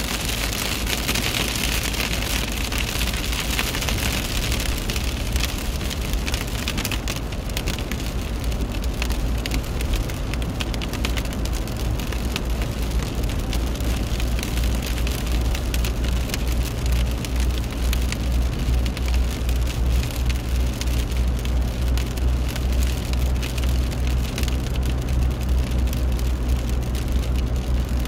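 A car driving, heard from inside the cabin: a steady low rumble of engine and tyres on the road, with a hiss over it, stronger in the first few seconds, and a scattered patter of light ticks on the car.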